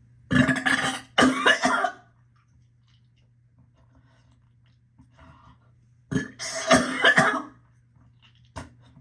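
A woman burping loudly from nausea: two burps in quick succession near the start, then a longer burp about six seconds in.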